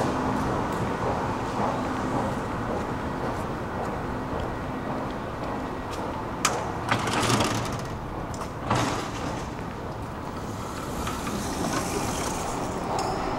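Steady low rumble of a metro station hall, with a ticket gate clicking and its panels sliding open and shut about six to nine seconds in.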